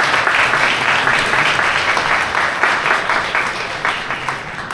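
Wedding guests applauding, a dense round of clapping in a hall that slowly dies away toward the end.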